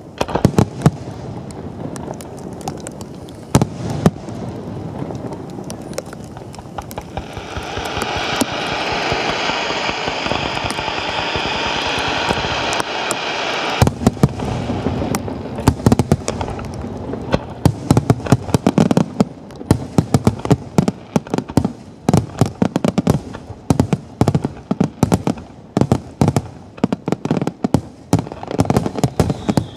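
Fireworks and firecrackers going off in dense, rapid strings of sharp cracks. About seven seconds in, a steady hiss rises under the cracks and cuts off sharply about halfway through, after which the crackling returns thick and fast.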